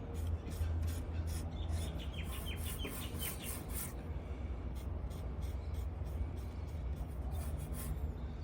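Repeated rubbing strokes on a lacquered wooden tabletop, over a steady low hum.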